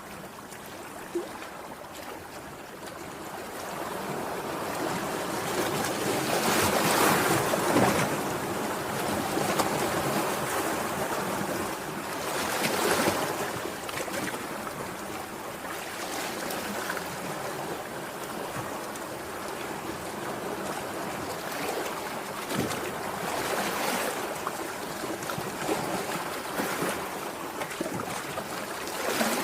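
Sea waves washing in, a steady rush of surf with several louder surges as waves break.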